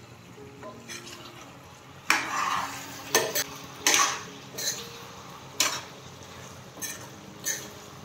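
Steel spoon scraping and knocking against a deep wok-style pan while stirring chicken pieces and chopped tomatoes, over a low frying sizzle. The strokes begin about two seconds in and come irregularly, roughly one a second.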